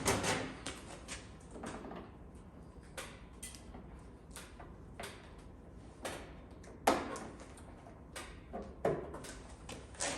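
Scattered sharp plastic clicks and knocks as push rivets are popped out and bolts removed from the body panels of a Kawasaki Teryx KRX side-by-side, the loudest knock about seven seconds in.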